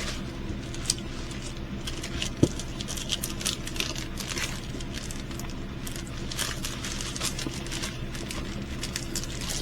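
Plastic packaging of small craft kits rustling and crinkling as it is handled, with scattered light ticks, a couple of sharper clicks and a steady low hum underneath.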